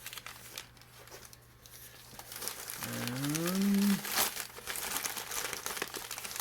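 Packing padding crinkling and rustling as it is pulled out of a box by hand. About three seconds in, a man gives a brief rising 'hmm' lasting about a second.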